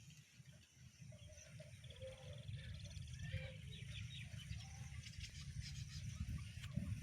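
Birds chirping and trilling faintly, over a low rumble of wind on the microphone that grows louder toward the end.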